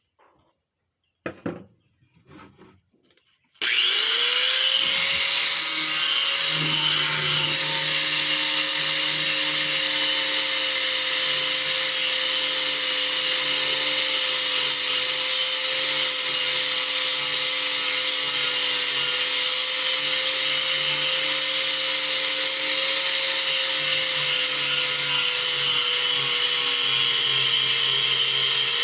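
Electric power sanding tool with a coarse sanding disc starting up about three and a half seconds in and running steadily with a constant whine, abrading stain off wood. A short knock comes just before it starts.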